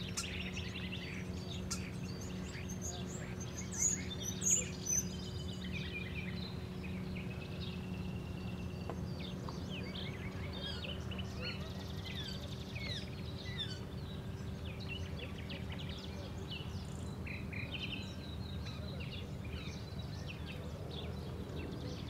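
Several birds calling and singing, with short high notes and trills scattered throughout and a few loud, high chirps close by about four to five seconds in, over a steady low hum.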